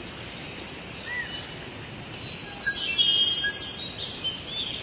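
Birds chirping and whistling over a steady background hiss, with short rising and falling calls and a cluster of whistled notes about three seconds in.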